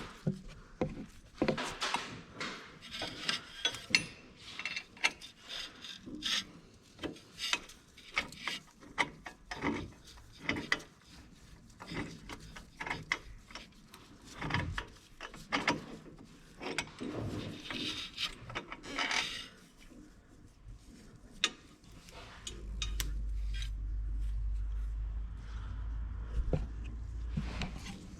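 Workshop handling noises: repeated knocks, clicks and scraping or rubbing. A low steady hum starts about three quarters of the way through.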